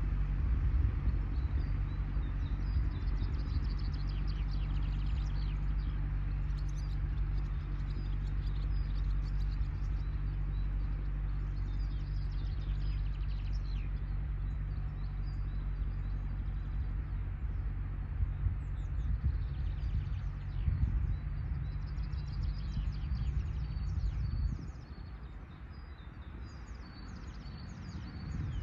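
Distant IHC 844 AS tractor's diesel engine droning steadily as it pulls a meadow roller. The drone falls away sharply about four seconds before the end and rises again at the very end. Small birds chirp repeatedly over it.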